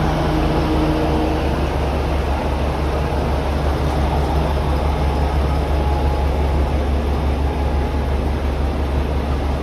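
Steady low rumble of a diesel railcar running, with an even hum and no sudden sounds.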